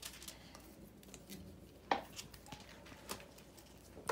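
A stack of Spellfire trading cards handled and sorted through by hand: a few faint, separate clicks and taps as cards are flicked and squared, the sharpest about two seconds in.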